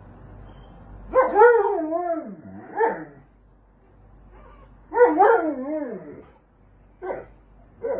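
A dog vocalizing in drawn-out whining calls that waver and slide down in pitch, two long ones and several shorter ones.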